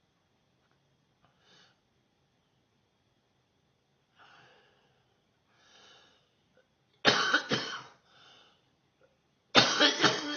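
A person's coughing fit: two loud bouts of several coughs each, about seven seconds in and again near the end, with faint breaths in the quiet between.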